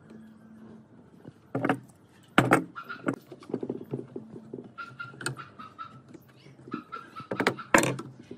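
A metal C-clamp being set over a wooden chair arm support and its screw tightened by hand: a few sharp knocks of metal and wood, the loudest near the end, with runs of light metallic clicking as the screw and handle turn.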